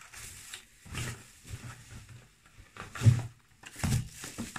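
Packaging handled in a cardboard shipping box: irregular rustling of plastic bubble wrap and bumps of a product carton being lifted out, loudest about three seconds in.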